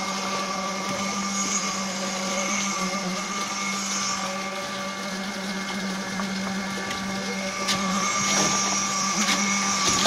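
Concrete pump with mixer running with a steady mechanical hum as it pumps concrete through the delivery pipe. A few short scrapes of a shovel in the wet concrete come near the end.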